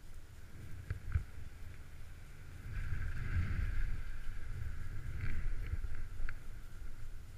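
Wind buffeting an action camera's microphone during a chairlift ride: a steady low rumble that swells in the middle, with a few faint clicks.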